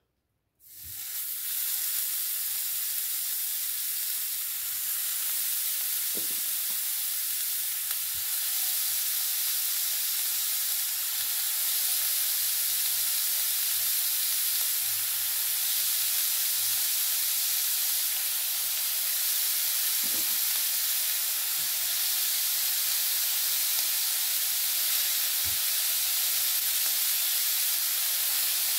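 Raw minced-meat kebab rolls sizzling on the hot plate of an electric grill. The sizzle starts sharply about half a second in as the first meat goes down, then holds steady, with a few faint knocks.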